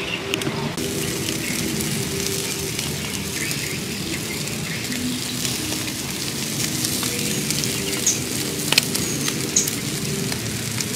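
Split mouse carcasses sizzling on a wire grill over charcoal, with the embers crackling and a few sharp pops near the end.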